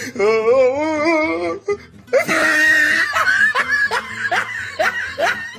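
A wavering, drawn-out voice for about a second and a half, a sudden loud burst about two seconds in, then a run of laughter in short repeated bursts, with music under it.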